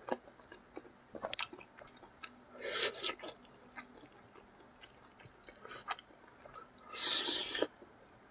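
Close-miked eating of spicy catfish mangut with rice by hand: wet chewing with small clicks and lip smacks, and two longer, louder noisy stretches, one about three seconds in and one near the end.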